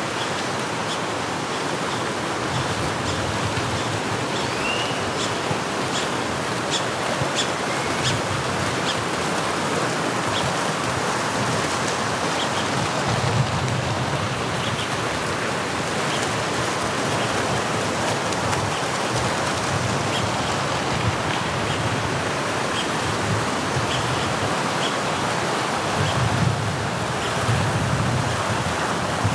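Steady rushing of water, an even unbroken wash, with a few faint short high chirps and ticks scattered over it.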